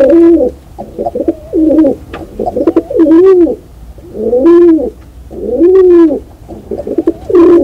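Pigeons cooing: a run of repeated throaty coos, each rising and then falling in pitch, coming about one every second or so.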